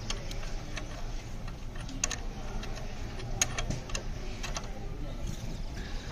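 Irregular light clicks and taps from hand work on the engine, over a low steady hum.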